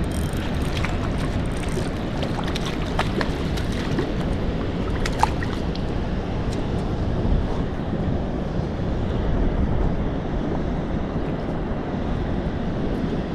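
Steady wind buffeting the microphone outdoors by a lake, with a few small clicks and ticks in the first half.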